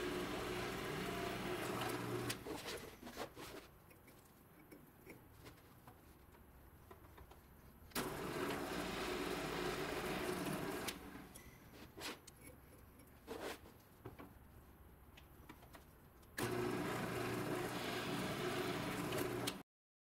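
Bench drill press motor running in three spells of about three seconds each, drilling holes through an aluminium plate, with a few handling clicks in the quieter gaps between.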